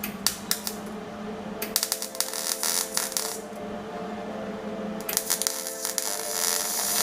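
MIG welder tack-welding an exhaust tip onto a steel straight pipe: two crackling, sputtering arc bursts, the first about one and a half seconds long and the second about two, with a few sharp clicks near the start.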